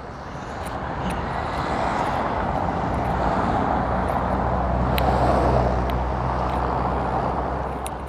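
A motor vehicle passing close by: a low engine hum and tyre noise swelling to a peak about five seconds in, then easing off.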